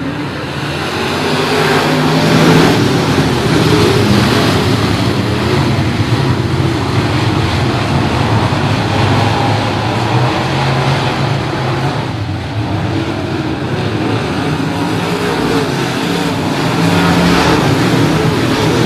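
A field of dirt late model race cars running their engines hard as the pack races around the dirt oval. The engine noise builds over the first couple of seconds, eases off about two-thirds of the way through, then swells again near the end as the cars come past.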